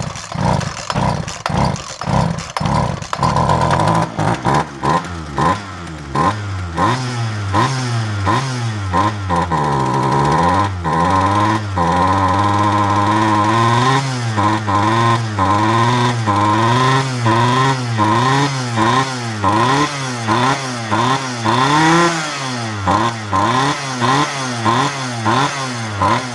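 Two-stroke Poulan chainsaw engine, running without bar or chain: it sputters and catches in the first few seconds, then runs with its pitch rising and falling over and over as the throttle is worked. It runs on a borrowed carburetor but will not settle to an idle.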